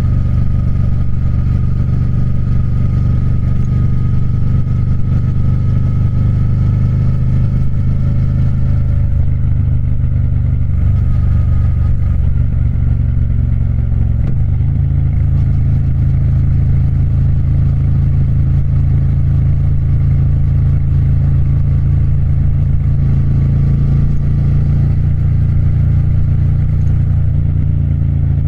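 Triumph Speed Twin's parallel-twin engine running steadily, its note shifting slightly about fourteen seconds in.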